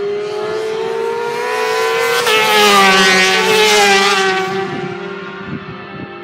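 Racing motorcycle passing at speed with its engine revving high. The engine note grows louder, drops in pitch as it goes by about two and a half seconds in, stays loudest for a second or so, then fades away.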